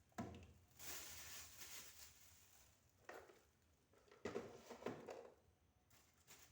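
Faint handling noise of fridge cleaning: a rubbing, wiping sound and a few light knocks and clatters as parts and items are handled, the loudest knocks a little after the middle.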